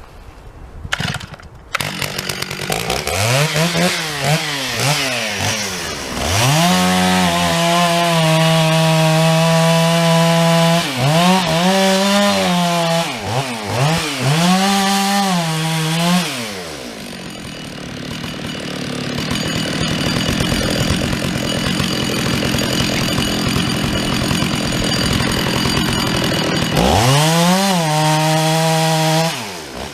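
Stihl 066 two-stroke chainsaw revving up and held at full throttle for long stretches with brief dips, as when cutting a felling notch in a pine trunk. About halfway it drops back to a lower steady run, then revs high once more and cuts off near the end.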